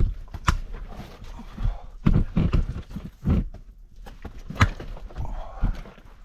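Footsteps of a hiker scrambling over rock: irregular steps, scuffs and knocks. The loudest is a sharp knock about four and a half seconds in.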